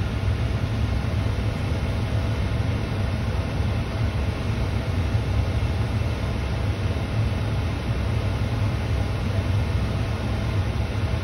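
Steady rumble and hiss of wind buffeting the microphone in blowing snow.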